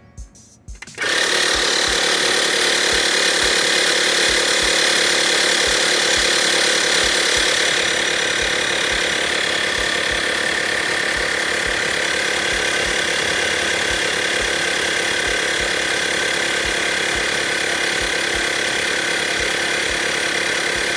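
Husky digital tire inflator's compressor, running off the car's 12 V lighter socket, starting about a second in and running steadily as it pumps a car tire up toward its 35 psi set point.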